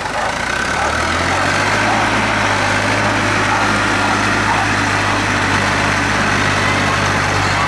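Small vintage tractor engine running hard as the tractor drives through deep mud and out of a mud pit. It picks up revs about a second in, then holds a steady note.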